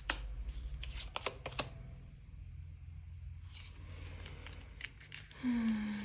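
Tarot cards being handled and laid out, with several sharp card clicks and snaps in the first two seconds and a few softer ones later. Near the end a woman gives a short thoughtful hum.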